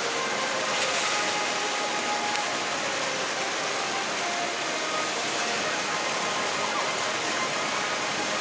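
Vekoma mine train roller coaster running along its steel track, cresting a hill and dropping into a curve: a steady rushing rumble of wheels on rails with no clear rhythm.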